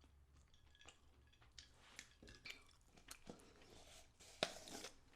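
Faint chewing with small wet mouth clicks, and a brief louder rustle-like burst of noise near the end.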